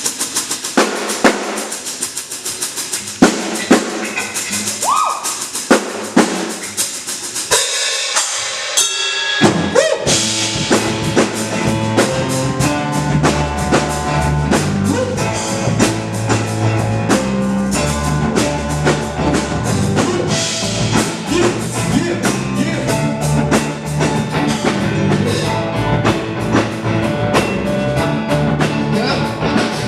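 Music, the instrumental intro of a song: a drum-kit beat with snare and rimshot hits plays alone at first, then bass and other instruments come in about a third of the way through.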